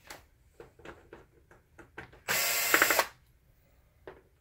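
Cordless drill/driver running once for just under a second, backing a screw out of a projector's plastic rear panel, after a few light clicks of the bit being seated and the case being handled.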